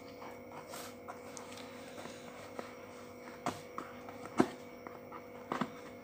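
Cardboard product box being handled and its top flap pulled open: a few short sharp clicks and taps, the loudest about four and a half seconds in, over a faint steady hum.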